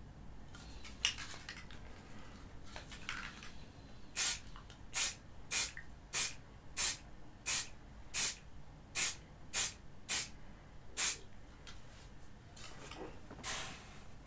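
Aerosol can of Halfords grey primer spraying in about eleven short hisses, roughly one every two-thirds of a second, then one longer hiss near the end: a light first coat of primer being misted on.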